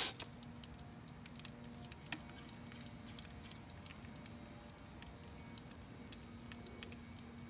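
Foaming radiator coil cleaner fizzing and crackling faintly on a muddy radiator core, a scatter of tiny pops and drips over a low steady hum, with one slightly louder tick about two seconds in.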